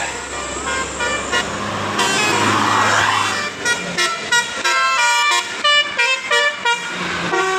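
A bus's Basuri 'telolet' musical air horn playing a quick tune of short notes at changing pitches, with the bus's engine and passing rush under it in the first few seconds.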